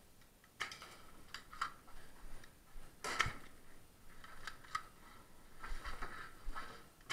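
Irregular clicks and scuffs of footsteps and gear on a debris-strewn floor, the loudest a little past three seconds in.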